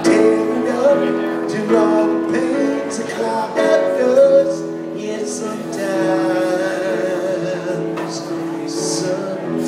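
Live music: a Kurzweil electronic keyboard playing held chords of a country ballad, with some singing.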